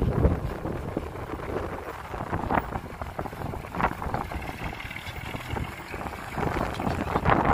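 Dump truck's diesel engine running, with wind buffeting the microphone.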